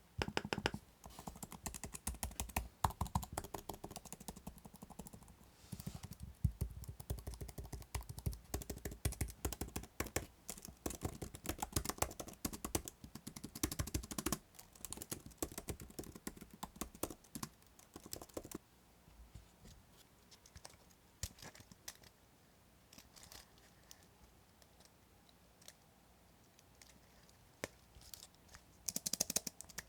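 Typing on an iPad Magic Keyboard's scissor-switch keys: a fast, dense stream of keystrokes. About 19 seconds in it changes to typing on a compact Apple Magic Keyboard, with sparse, quieter keypresses at first and a quick flurry of keystrokes near the end.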